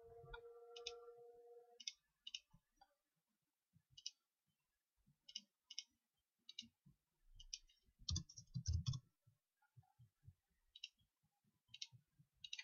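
Faint computer mouse clicks, about a dozen short sharp clicks spread out, some in quick pairs. A steady held hum-like tone runs for the first two seconds, and a louder low thud and rumble with a cluster of clicks comes about eight seconds in.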